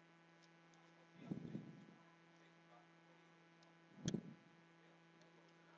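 Steady low electrical mains hum, with two brief handling sounds from work on the opened phone: a soft low scuff about a second in and a sharp tap about four seconds in.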